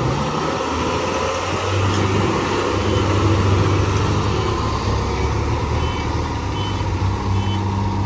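Diesel engine of a heavily loaded Tata 3718 14-wheeler truck running steadily as the truck pulls away. Faint short beeps repeat near the end.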